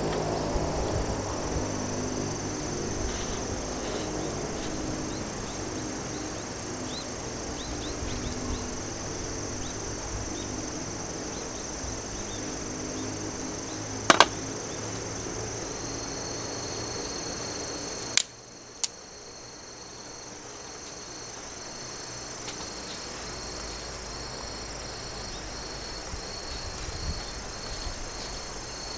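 Crickets and other grassland insects chirring steadily, with a second, pulsing cricket chirp joining about halfway through. A sharp double click sounds about fourteen seconds in, and the background drops suddenly a few seconds later.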